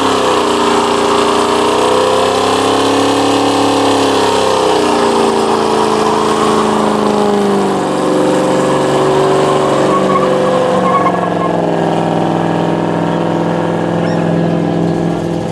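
V8 engine held at high revs during a smoky burnout, its pitch swinging up and down as the throttle is worked, with no break.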